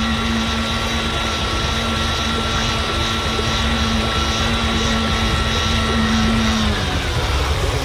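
Airboat's fan propeller engine running with a steady hum over a low rumble. Its pitch dips slightly and the hum stops about seven seconds in.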